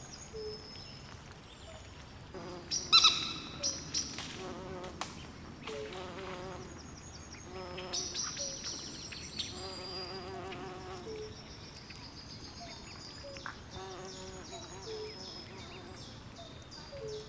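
Night swamp ambience: a chorus of frogs and insects calling in short, repeated chirps and warbling trills over a faint background hiss. A louder, sharper call comes about three seconds in.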